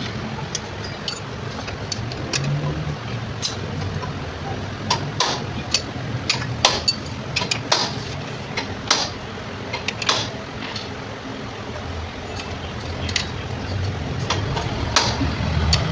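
Irregular sharp metallic clicks and clinks over a low steady hum.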